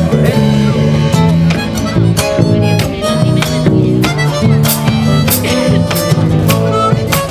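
Instrumental music from a small acoustic ensemble, full of dissonant, beating note clashes meant to evoke cats scratching in a rooftop fight, with frequent sharp note attacks.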